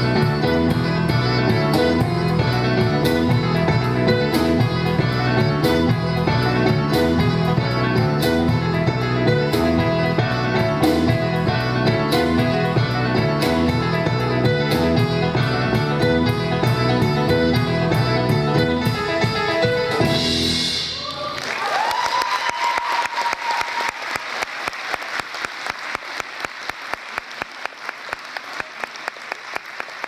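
A jazz trio of grand piano, flute and drum kit playing a driving piece, which ends about two-thirds of the way through. Applause follows at once and settles into steady rhythmic clapping in unison.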